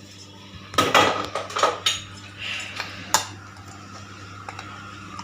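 A spoon clinking against a bowl and spice containers while spice powder is scooped and added to a vada batter. There are several sharp clinks in the first three seconds, the last and sharpest about three seconds in.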